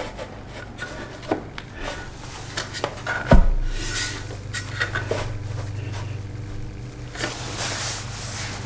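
Aluminium roof-rack parts being slid together and handled by hand: rubbing and small clicks, with one louder knock about three seconds in.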